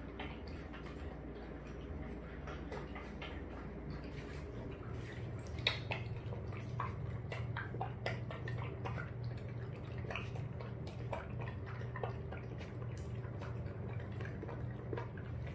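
Toy poodle puppy eating dry kibble from a stainless steel bowl: many quick, irregular crunches and clicks of food and teeth against the metal. A steady air-conditioner hum runs underneath.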